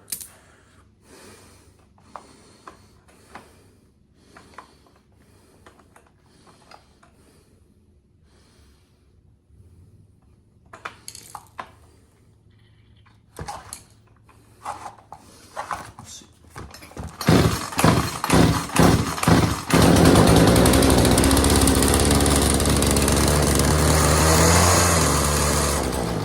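Poulan Pro PP4218A 42cc two-stroke chainsaw being pull-started after a carburetor cleaning: quiet handling ticks at first, then from about halfway a few pulls on the starter, the engine sputters and catches, and it runs at a steady speed for the last six seconds or so. It fires and runs but its carburetor still needs adjusting.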